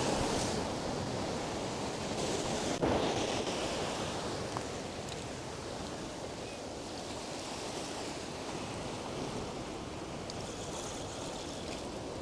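Ocean surf washing and breaking against the rocks of a shoreline: a steady rushing wash that swells a little about two to three seconds in, with one brief knock near the swell.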